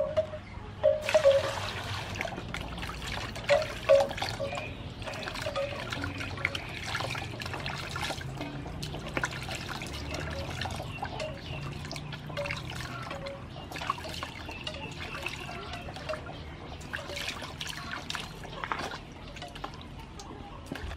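Hands washing vegetables and fruit in a large metal basin of water: irregular splashing, sloshing and dripping, with the loudest splashes in the first few seconds.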